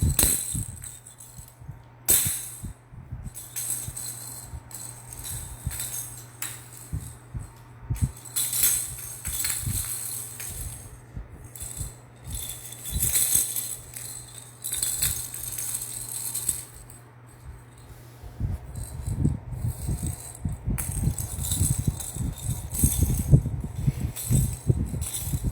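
A toy rattle shaken hard in irregular bursts of rattling. In the last few seconds, rough low sounds join the rattling and become the loudest part.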